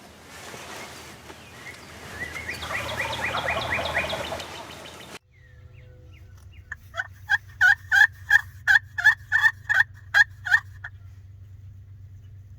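A wild turkey gobbler gobbling, a rapid rolling burst over a windy background. After a cut, a loud run of about a dozen turkey yelps at about three a second.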